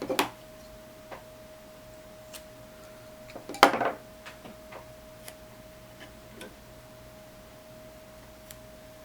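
Small clicks and taps of hands working on parts and tools at a workbench, with one louder clatter about three and a half seconds in. A faint steady tone sits underneath throughout.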